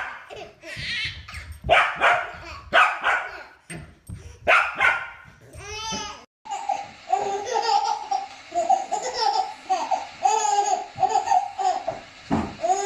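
A dog barking mixed with a baby laughing. After a cut about six seconds in, a baby laughs in a long run of short, rhythmic giggles.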